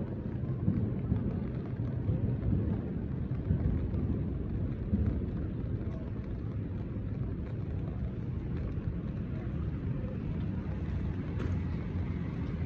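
Low, uneven rumble of outdoor street noise on a rain-wet street, with a car going by on the wet road near the end.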